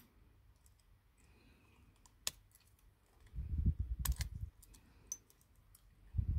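Small scattered clicks and ticks of tweezers working on a smartphone's flex cables and connectors, with a low muffled rumble of handling about three and a half seconds in and again near the end.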